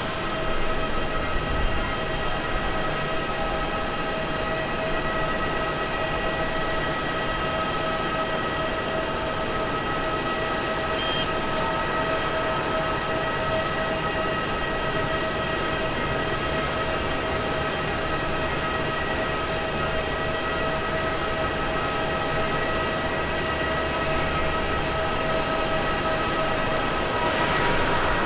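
Jet engines of a Lufthansa Boeing 747-8 (GE GEnx) on the runway, making a steady whine of several held tones over a rumble. The noise swells near the end as the engines spool up for the takeoff roll.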